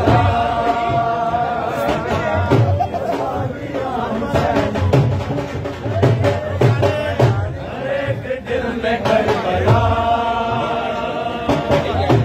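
A group of men singing a devotional chant together, with long held notes twice, over a rhythmic low beat.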